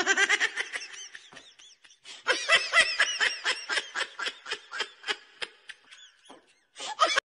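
Person laughing hard in a rapid string of short ha-ha bursts, with a brief break about two seconds in; it cuts off suddenly near the end.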